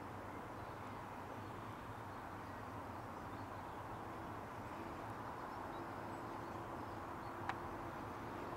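Quiet outdoor ambience with a faint, steady low engine hum in the distance, and one short, sharp click about seven and a half seconds in.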